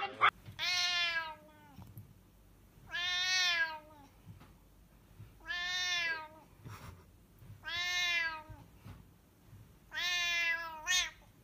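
A cat meowing loudly five times, each call drawn out about a second and evenly spaced, in protest as a hand reaches to pet it.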